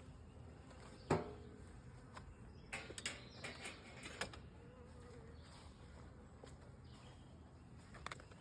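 Honeybees buzzing faintly around an open hive. A sharp knock about a second in and a few lighter clicks a couple of seconds later.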